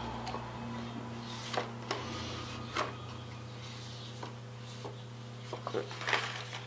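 Faint rustles and light taps of hands handling a hardcover book and its paper dust jacket, a few scattered and a small cluster near the end, over a steady low hum.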